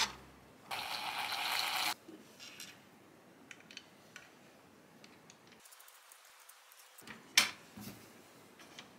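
Small 3D-printed plastic tractor parts being handled and fitted together on a wooden bench: a noisy stretch of about a second near the start, then scattered light clicks and one sharper click near the end.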